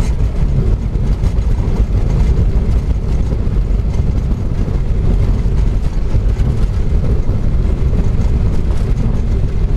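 Flight deck of a Boeing 737-800 during the landing roll: a loud, steady low rumble of the engines and the wheels running down the runway.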